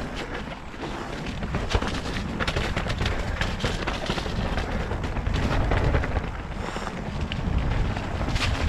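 Nukeproof Mega RS mountain bike descending a wet, muddy, rocky trail: wind rumble on the microphone with rapid clicks and knocks as the bike rattles over rocks and roots.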